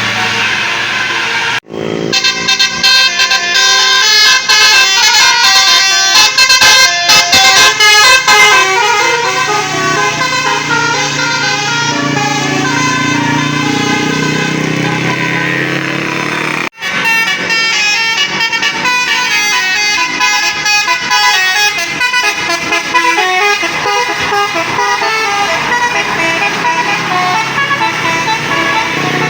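A bus's Basuri multi-tone 'telolet' horn playing quick runs of stepping notes. It is loudest in the first several seconds and breaks off briefly twice.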